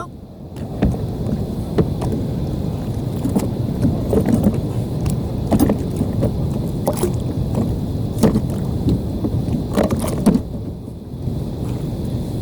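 Steady low rumble of wind and water around a fishing kayak, with about ten short sharp knocks and taps scattered through.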